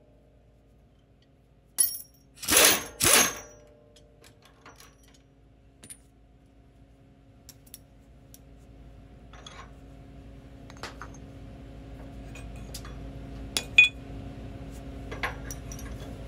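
Two short bursts from a pneumatic ratchet about three seconds in, spinning the nut off the long bolt of a bushing press tool, followed by scattered metal clinks and clicks as the tool parts are handled. A low steady hum grows louder in the second half.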